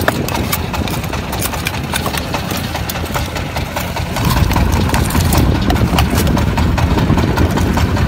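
Fishing boat's engine running steadily, louder from about four seconds in, with many quick clicks and knocks as the drink-can octopus traps on the rope and a metal hook are handled.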